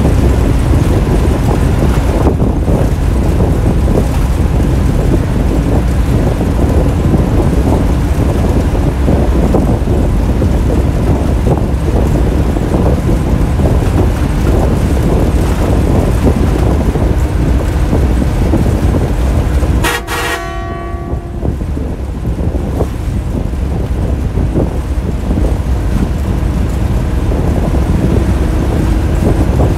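Bus engine and road noise heard from inside the driver's cab, loud and steady. About two-thirds of the way through, the bus horn sounds one short blast of about a second, and the running noise dips for a few seconds before building back up.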